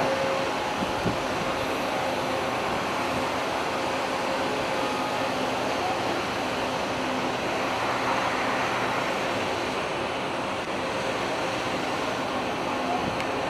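Steady machinery drone with a few held hum tones from the container ship, mixed with wind noise on the microphone. A brief knock comes right at the start.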